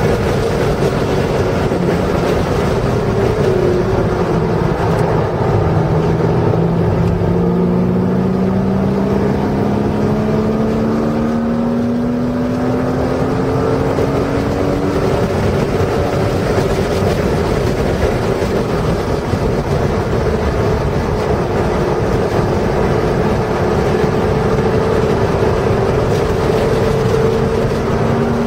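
Porsche engine under throttle, heard from inside the cabin, its pitch climbing slowly as it pulls through a gear, over steady road and wind noise.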